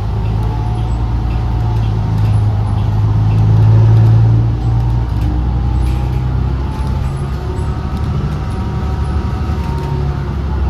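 Interior sound of a 2016 New Flyer XDE40 diesel-electric hybrid bus under way: a strong low drivetrain drone that builds to its loudest about four seconds in, then drops back. A fainter, higher whine drifts in pitch above it.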